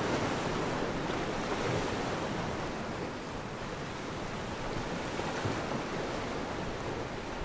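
Sea surf washing on a beach, a steady rushing noise with some wind.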